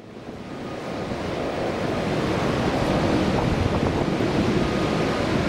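Steady jet-engine roar of a Boeing 787-8 on the runway, mixed with wind buffeting the microphone. It fades in over the first couple of seconds.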